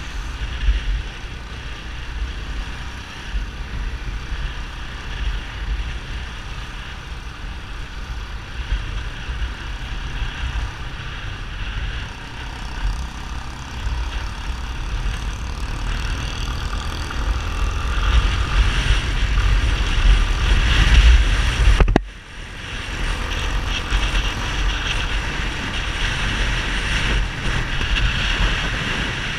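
Yamaha XTZ 250 Ténéré's single-cylinder four-stroke engine running through a Roncar 2WAY SC401 aftermarket exhaust under way, with wind rumble on the microphone. The engine note builds over a few seconds about two-thirds of the way in, then drops off abruptly.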